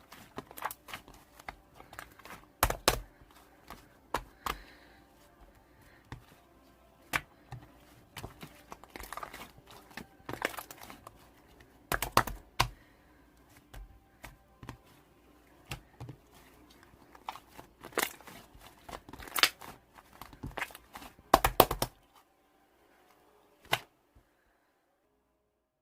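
Irregular clicks, taps and knocks with some rustling, like something being handled close to the microphone, with a few louder knocks; it stops about 22 seconds in, with one last click shortly after.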